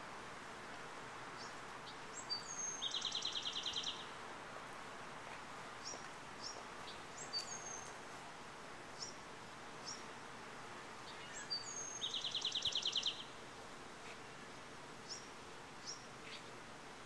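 A songbird sings twice, about nine seconds apart, each song a few high notes leading into a fast trill about a second long, with scattered short chirps between, over a steady outdoor background hiss.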